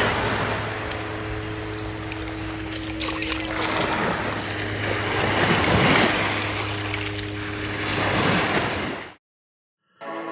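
Small waves breaking and washing up over sand, swelling and ebbing in surges, over a steady low hum. The sound cuts off suddenly about nine seconds in, and music starts at the very end.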